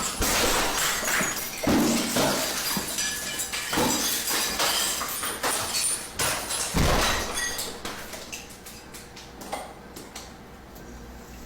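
Glass shattering and things crashing over and over, with a heavier thud about two-thirds of the way in. It then thins out to scattered tinkles and clinks of pieces settling.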